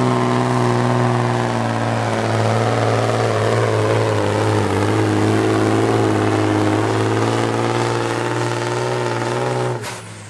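Tuned diesel engine of a pulling truck running hard under heavy load as it drags the weight sled. Its pitch sags a little midway and then holds steady, and the sound cuts off abruptly shortly before the end.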